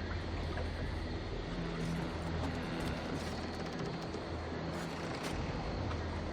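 A person snoring: a steady, rough, low rumble with low humming tones that come and go.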